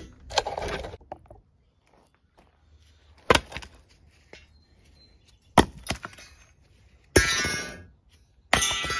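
Removed rear shock absorbers and coil springs dropped one at a time onto gravel: five sharp metal clanks a second or two apart. The last two ring on briefly, the way a steel coil spring rings after it lands.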